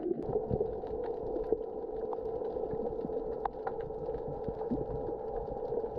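Underwater ambience picked up by a camera in its waterproof housing: a steady muffled hum with scattered small clicks and crackles throughout.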